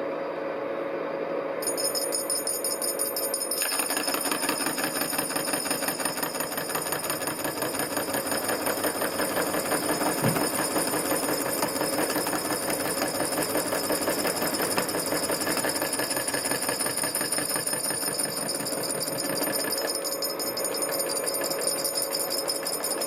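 Steinel horizontal milling machine running, its cutter cutting a slot in a brass spigot with a 0.1 depth of cut. The cutting chatter comes in about four seconds in over the steady hum and whine of the machine, and lightens near the end.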